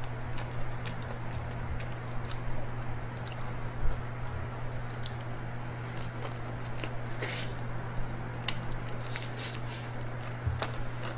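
Close-miked chewing and biting of fried chicken: wet mouth sounds and many short, irregular clicks, over a steady low hum.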